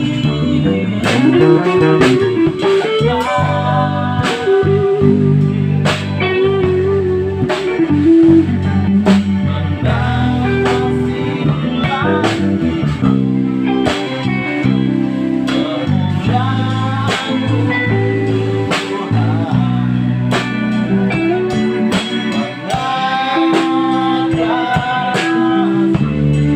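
A band playing: guitar melody lines with bending notes over bass guitar, keyboard and a drum kit keeping a steady beat.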